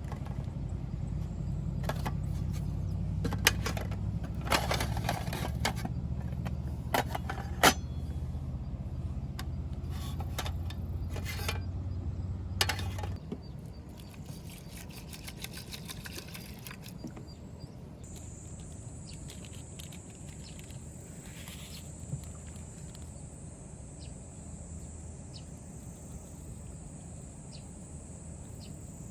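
A steady low hum with scattered clicks and clatter that stops abruptly about halfway through. Insects then start buzzing in one steady high drone.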